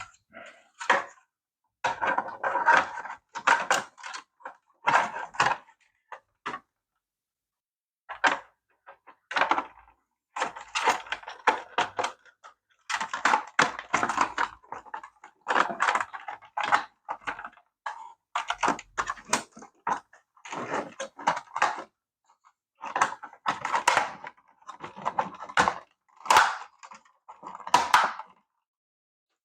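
Small plastic parts of a toy RC car being handled and taken apart: irregular bursts of clicking and rattling, with short pauses between them.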